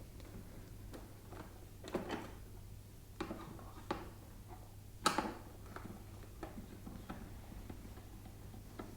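Scattered clicks and knocks from working on an air conditioner's parts during disassembly, the loudest knock about five seconds in.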